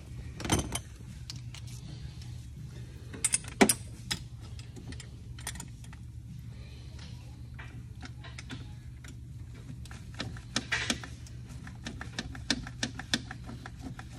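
Scattered sharp clicks and metal clinks of hand tools, a ratchet and sockets loosening the upper valve cover bolts on a Ford 6.0L diesel, over a steady low hum. The loudest clicks come about half a second in and again three to four seconds in.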